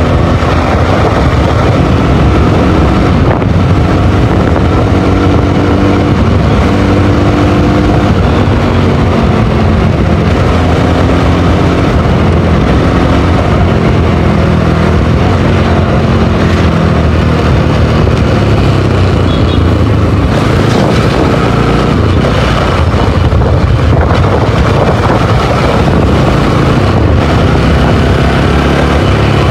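Single-cylinder sport motorcycle engine running under way, heard from the bike itself, its pitch rising and falling as the throttle opens and closes through the gears.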